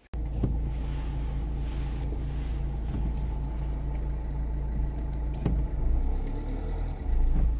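Car engine running, heard from inside the cabin: a steady low rumble with a couple of light knocks.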